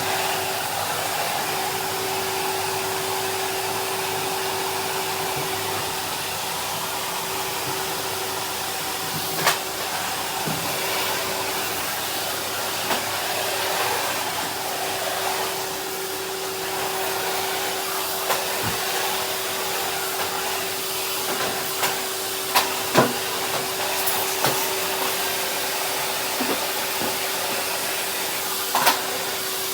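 Henry cylinder vacuum cleaner running steadily: a constant motor hum over rushing air, with a few sharp clicks along the way.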